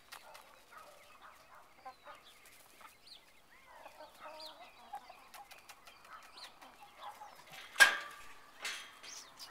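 A small flock of young chickens clucking and chirping softly as they scratch about. One loud, sudden sound cuts in near the end.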